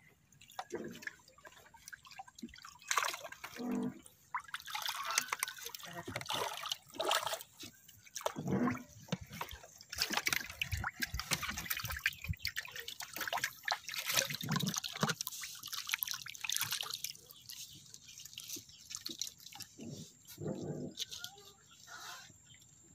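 Water dripping and splashing in irregular bursts as a wet gill net is hauled hand over hand out of the river into a wooden boat.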